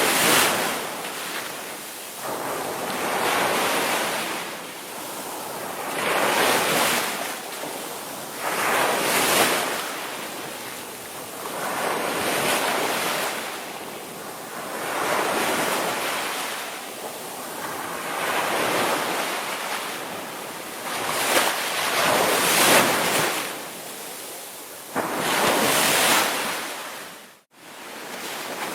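Ocean surf breaking and washing in repeated surges every two to three seconds. Near the end the sound cuts out suddenly for a split second, then resumes.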